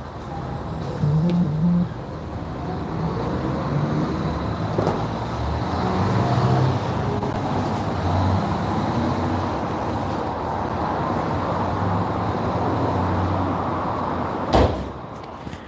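Steady mechanical noise with a low hum, and one loud thump near the end as a hatchback's tailgate is shut.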